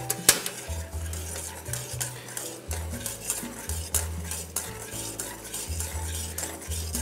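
Metal spoon stirring water fast in a stainless steel pot, clinking again and again against the pot's sides. It is whipping the water into a whirlpool for poaching an egg.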